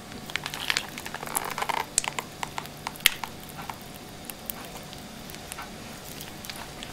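Faint scattered clicks and crinkles from a plastic mayonnaise pack being squeezed out in thin lines, thinning out after about four seconds.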